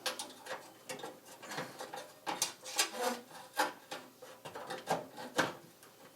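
A dash switch panel being pushed and worked into a freshly cut hole in the dash: irregular scraping, rubbing and small knocks.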